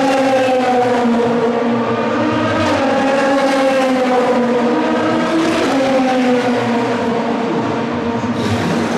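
Race car engines running hard on track, loud and continuous, the engine note sliding slowly down and jumping back up about every three seconds.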